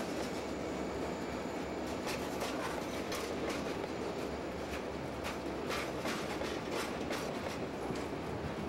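Freight train boxcars rolling past at trackside: a steady rumble of steel wheels on rail, broken by irregular sharp clicks and clanks from the passing cars.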